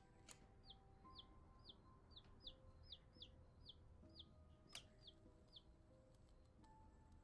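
Baby chick peeping: a run of about a dozen short, faint falling peeps, roughly two a second, that stop a little past the middle. Faint sustained music tones sit underneath, and there are two sharp clicks.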